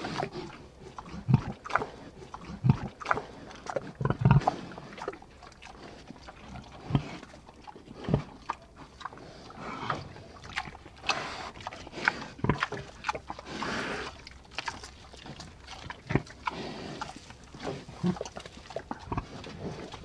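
A large wild animal grunting and growling in short, irregular bursts, several a few seconds apart.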